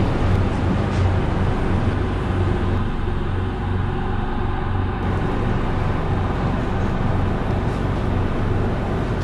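A steady low hum under a continuous rushing noise, like a constant background drone.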